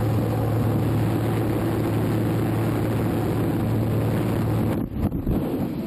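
Steady drone of a light aircraft's engine and propeller with wind rushing in through the open jump door. The drone cuts off a little before the end, broken by a few abrupt jolts in the rush.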